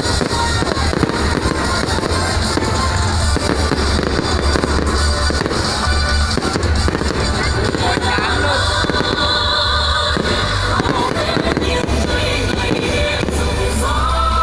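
Fireworks bursting and crackling in quick, dense succession over loud music.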